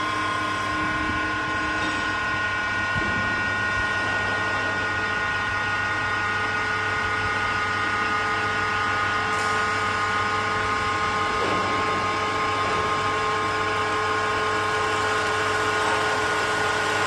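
CNC wood turning lathe running, a steady machine whine made of several held tones over a low hum.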